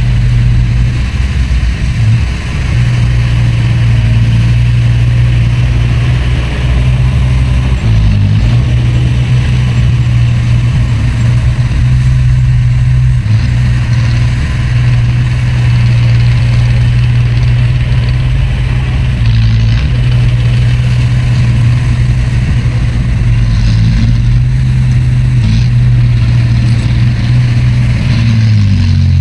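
Heavy diesel engine of earthmoving machinery running steadily with a loud low drone, dipping briefly about two and eight seconds in and again near the end.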